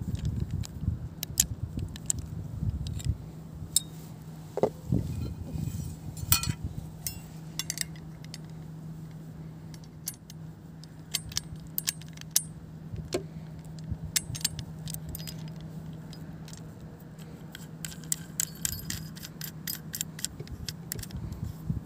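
Small metal parts of a folding survival multi-tool clicking and clinking in the hands as the axe head is taken off the handle and the saw blade fitted. A steady low hum runs underneath.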